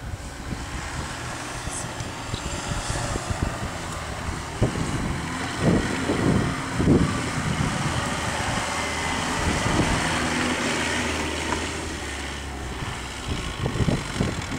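Jeep Cherokee (Liberty) SUV engine running steadily as it drives through soft dune sand, with gusts of wind buffeting the microphone, strongest around the middle.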